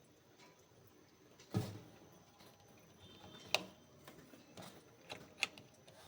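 Handling knocks and clicks: a dull knock about one and a half seconds in, then a sharp click two seconds later and two more close together near the end.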